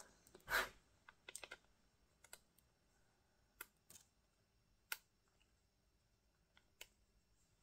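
Small, sharp clicks and taps, irregular and spaced out, from handling a precision screwdriver and its bits: a bit being picked out and fitted and the driver touching hard surfaces. The loudest clicks come just after the start and about five seconds in.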